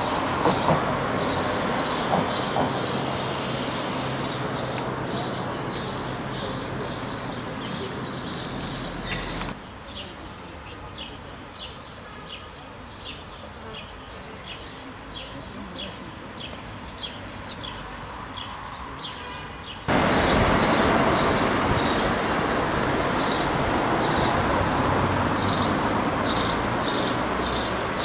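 Outdoor ambience of passing road traffic with small birds chirping in short high calls repeated a few times a second. The background drops abruptly about a third of the way in and comes back up about two-thirds in.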